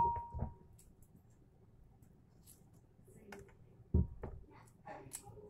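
Boiled chestnuts in their shells knocking against a hard bowl as a hand picks one out: a sharp knock with a brief ring at the start and another few knocks about four seconds in, with faint small clicks between.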